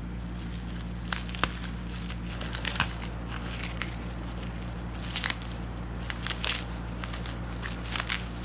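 Bubble wrap around a small box being handled and pulled at, crinkling in short bursts of crackles. A steady low hum runs underneath.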